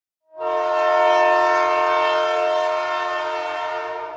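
Train horn sounding one long, loud, steady blast of several notes at once, starting abruptly out of silence and fading near the end.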